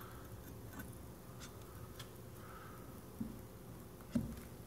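Quiet handling of a hole saw on a cordless drill as it is set against a wooden board, with the drill not running: a few faint clicks, then two short, soft knocks in the last couple of seconds.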